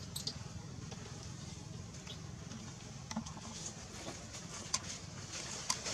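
Steady low outdoor rumble with scattered light clicks and rustles of monkeys moving in dry leaf litter.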